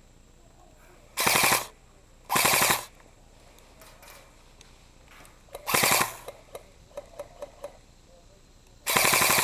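Airsoft electric rifle firing four short full-auto bursts of about half a second each, the rapid shots plainly spaced within each burst. A few faint single clicks come between the third and fourth bursts.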